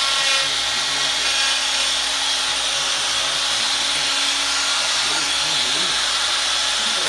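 Die grinder running steadily with a high whine, its speed turned down through a light-dimmer rheostat, grinding and smoothing the edges of a port in the wooden plenum.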